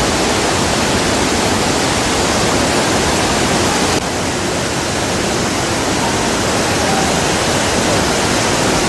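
Flash-flood torrent rushing down a mountain valley: a loud, steady rush of water, dipping slightly in level about four seconds in.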